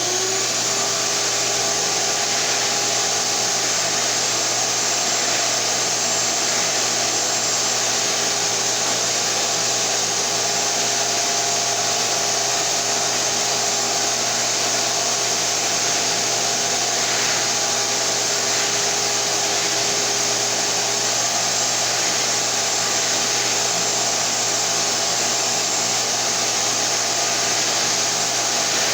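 Shop-Vac Super 1300 wet/dry vacuum running steadily at full power, a constant rushing whine of motor and airflow, with a carpet brush attachment fitted.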